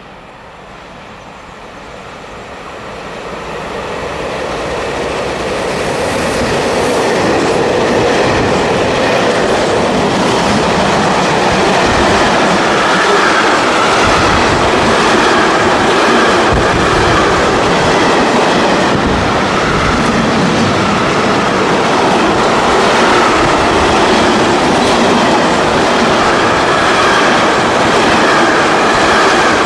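ÖBB Taurus electric locomotive approaching and passing at speed with a mixed freight train, growing louder over the first seven seconds or so. Then the steady noise of the passing freight wagons, with wheels knocking over rail joints.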